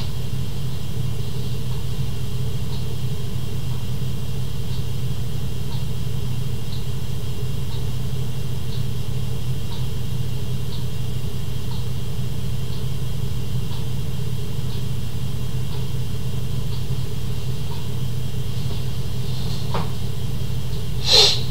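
Dell PowerEdge T710 server running through its power-on start-up, its cooling fans giving a steady whirring hum, with faint ticks about once a second and a sharper click near the end.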